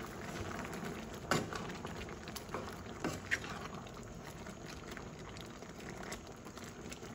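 A mung bean stew simmering and bubbling in a pan as a wooden spatula stirs through it, with a few sharp clicks in the first half.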